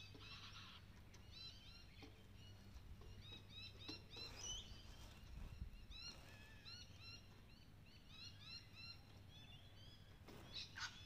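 Faint chorus of small birds chirping, many short arched notes overlapping, over a low steady hum. A short louder sound comes near the end.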